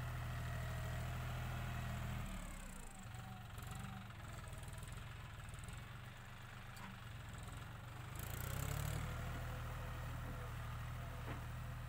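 John Deere 5045 tractor's three-cylinder diesel engine running under load as it pushes soil with its front dozer blade. The engine note drops about two seconds in and picks up again about eight seconds in.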